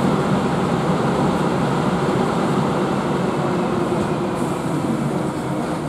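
ChS7 electric locomotive standing with its ventilation running: a steady whooshing hum that eases slightly near the end.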